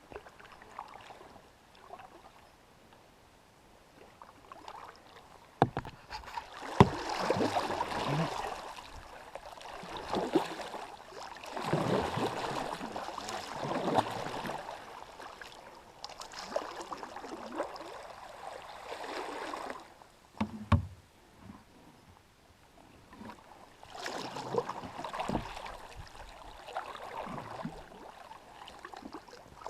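Kayak paddling on a river: repeated washes of water splashing and churning as the paddle blades dip, with a few sharp knocks, likely the paddle against the kayak. The strokes come in runs, with a lull in the middle.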